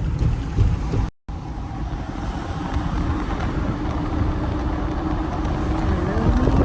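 2019 Ford Transit van driving, with steady road and engine rumble heard from inside the cabin. The sound cuts out for a moment about a second in, and a faint hum rises in pitch near the end.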